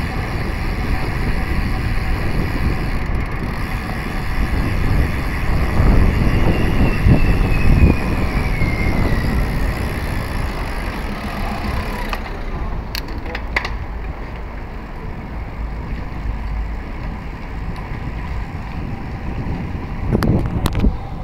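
Wind buffeting a phone microphone as it moves along a street, a steady rumble with road noise. A faint tone slides down in pitch about six to nine seconds in, and a few sharp clicks come just after halfway.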